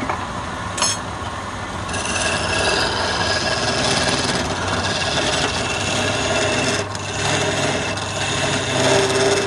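Wood lathe running, with a flat chisel scraping and cutting a spinning wooden spindle in a steady rasping hiss that grows fuller from about two seconds in.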